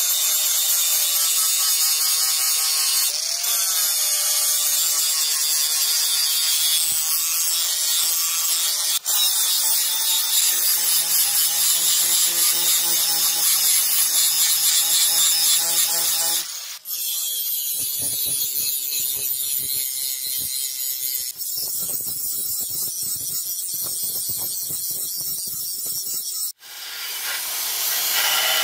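Electric angle grinder running against a steel sword blank, grinding the blade's edge down to its marked outline in several abruptly joined stretches with a steady motor whine. About two seconds from the end it gives way to a belt sander running against the steel.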